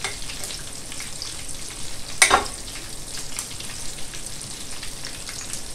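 Diced potatoes with parsley sizzling and crackling in oil in a non-stick frying pan, with a metal spoon stirring at first. A single loud clink about two seconds in, as the spoon is set down.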